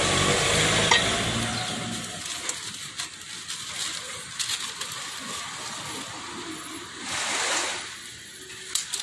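Newspaper rustling and crinkling as food is folded and wrapped in it, with scattered light clicks. A low vehicle engine hum fades out in the first couple of seconds, and a louder swell of rushing noise rises and falls near the end.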